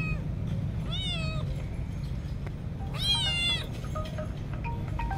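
Black kitten meowing: two high, arching meows about two seconds apart, the second louder and longer.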